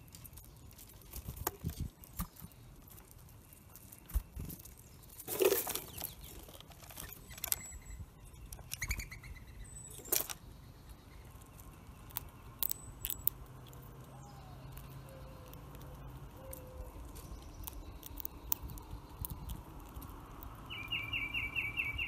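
Mourning doves and an eastern gray squirrel foraging in sunflower seeds on a platform feeder: scattered clicks and rustles of seeds, with a loud flutter of wings about five seconds in. Faint bird calls sound now and then, and a quick run of about six chirps comes near the end.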